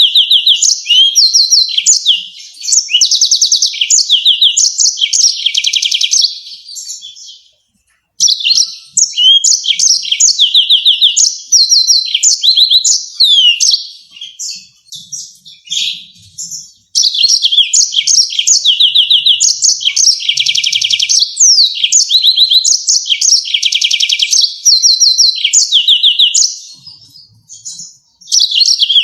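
Yellow-fronted canary singing: long bouts of rapid, sharp trills and chirps, broken by three short pauses.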